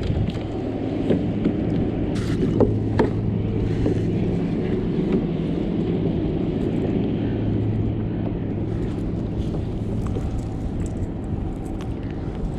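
Steady low engine drone, with a few short knocks in the first three seconds.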